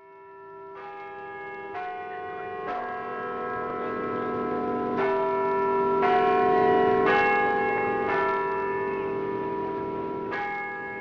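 Church bells ringing: several bells of different pitch struck one after another, a second or two apart, each ringing on into the next. The sound fades in at the start.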